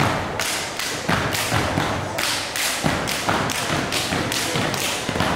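Step team stepping: rhythmic stomps and hand claps in a steady beat, about three strikes a second.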